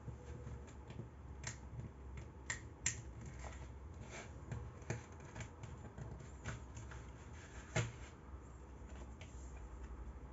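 Plastic CD jewel case clicking and tapping under the fingers as the paper booklet is pried from its front tabs and slid out, with a light rub of paper. Scattered small clicks, the sharpest a few seconds in and again near the end.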